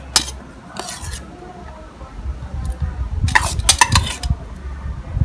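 A steel spoon scraping and clinking against a stainless steel pan while scooping chopped onion and green chilli into a steel bowl. There are a few sharp clinks early on, and a quick cluster of clinks about three to four seconds in.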